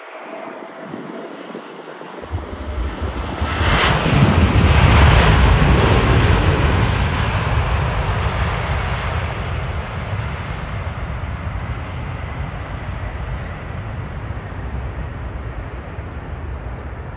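Jet airliner's engines at takeoff thrust during its takeoff roll. The noise builds, is loudest as the aircraft passes about four to six seconds in, then slowly fades as it accelerates away down the runway, over a deep rumble.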